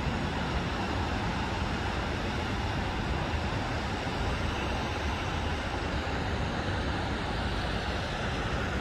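Steady aircraft cabin noise: an even engine and airflow hum heard from inside the cabin, unchanging throughout.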